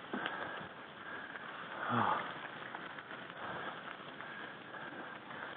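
Mountain bike tyres rolling and crunching over a loose gravel road on a climb, with a steady rustling noise. About two seconds in, a short vocal sound falls in pitch, like a grunt or heavy breath from a rider.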